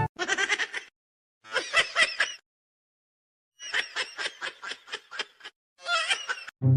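A high-pitched, rapidly pulsed, laughter-like vocal sound, heard in four short bursts with silent gaps between them.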